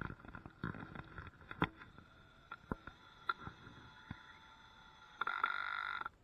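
Scattered knocks and clicks of wooden pieces being handled, then a small power tool runs steadily for about a second near the end and cuts off suddenly.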